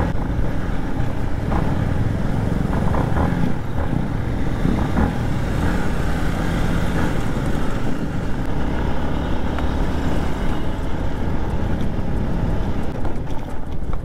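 Yamaha motorcycle running steadily at low road speed, heard from the rider's seat, with a low rumble of wind over the microphone.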